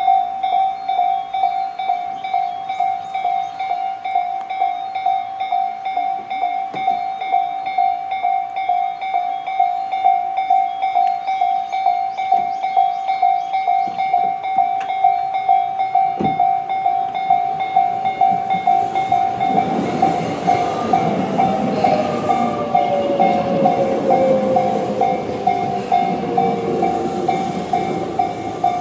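Japanese electronic level-crossing bell (Tobu tone C) ringing in a steady repeating ding. About two-thirds of the way in, a Tobu 20400-series electric train rolls over the crossing, and its wheel rumble and rattle build up under the bell with a slowly falling motor whine.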